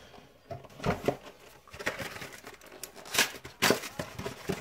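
Cardboard trading-card boxes being handled and opened by hand: a string of light knocks and taps, with crinkling of the packaging, the sharpest snap about three seconds in.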